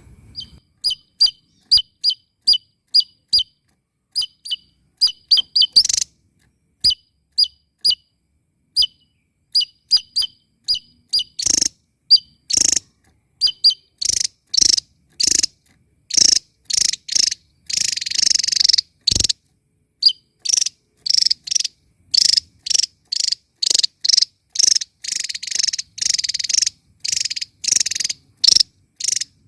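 Javan tesia singing loudly: short, clear high notes about two a second, which quicken after about ten seconds into faster, harsher chattering with a dense scratchy run midway.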